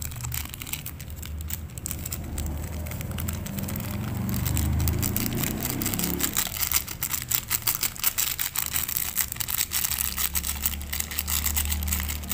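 Crinkling and crackling of a plastic seasoning sachet of Royco chicken stock powder as it is squeezed and shaken out over a bowl, the quick crackles thickest in the second half. A low rumble runs underneath.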